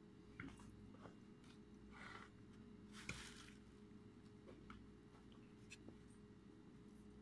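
Near silence: a few faint scattered clicks and short rustles of things being handled, over a steady low electrical hum.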